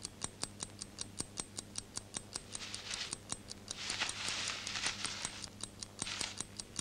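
Steady rapid ticking, about five sharp ticks a second, with a few short stretches of soft rustling over it, about two and a half, four and six seconds in.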